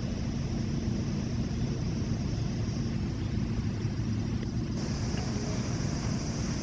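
Outdoor ambience: a steady low rumble with a steady high hiss above it, and the hiss gets louder about five seconds in.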